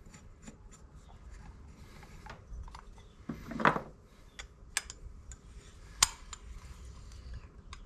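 Small metal carburetor parts being handled and the choke (enrichment) plunger being threaded into the S&S Super B carburetor body by hand: faint scattered clicks and rubbing, a brief louder scrape a little past halfway, and a sharp click about six seconds in.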